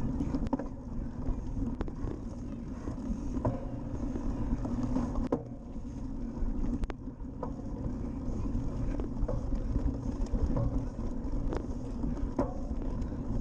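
Riding noise of a cyclocross bike on a bumpy grass course: a steady low rumble of tyres and wind on the microphone, with scattered sharp clicks and rattles from the bike over the bumps.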